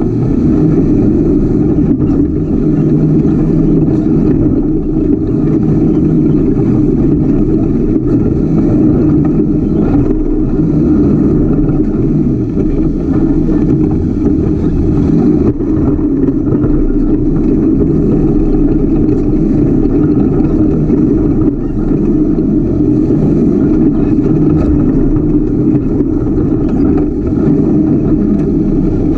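Ultra4 off-road race car's engine running loud and steady while the car is under way, heard close up from a camera mounted on the car.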